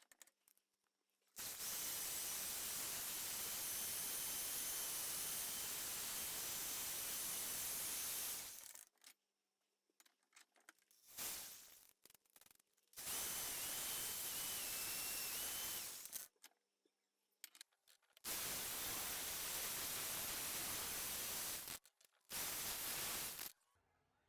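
Hissing spray from a nozzle in five bursts, the longest about seven seconds and the others one to four seconds, each switched on and off sharply, some with a faint high whistle over the hiss.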